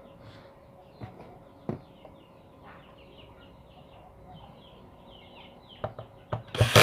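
Sharp clicks and knocks from bolts and the metal case of a car power amplifier being fitted together, ending in a loud clatter. Chickens and birds call faintly in the background.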